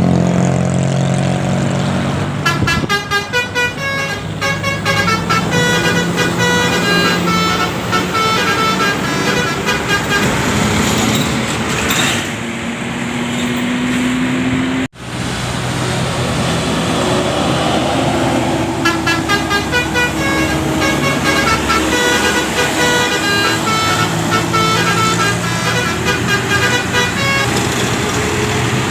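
Multi-tone 'telolet' bus horns playing quick tunes of short, stepped notes over a bus engine running. There are two passages, broken by a sudden cut to silence about halfway.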